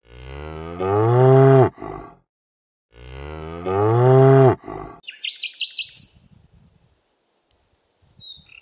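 A cow mooing twice. Each moo is long and drawn out, rising and then dropping in pitch before it breaks off. About five seconds in, a bird gives a quick run of high chirps.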